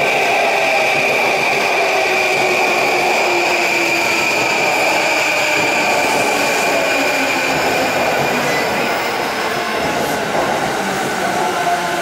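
JR East E235 series electric train moving slowly along the platform, with the steady rumble of the cars and a steady high-pitched whine over a lower tone.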